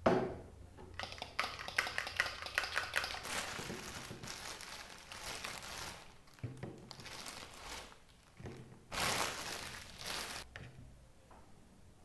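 Clear plastic bread bag crinkling and rustling as buns are handled in it, in two spells: a long one of dense crackles and a shorter one near the end. It opens with a single knock.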